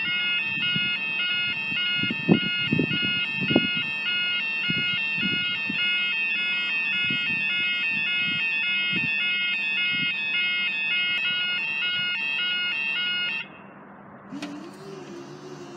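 Level crossing yodel alarm sounding, a rapidly alternating two-tone warble, while the barriers stand raised; this irregular sequence puzzles the recordist. The alarm cuts off suddenly about thirteen seconds in, and a faint low hum starts a second later.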